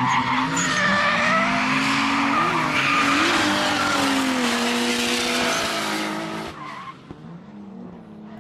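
Drift cars sliding sideways: engines revving hard, their note wavering up and down, over a steady screech of spinning tyres. About six and a half seconds in the sound drops suddenly to a quieter engine.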